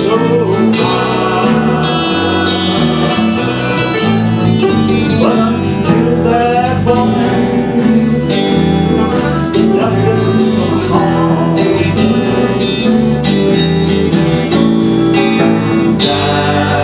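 Live acoustic string band playing an instrumental passage: guitars with bass and mandolin, plucked and strummed.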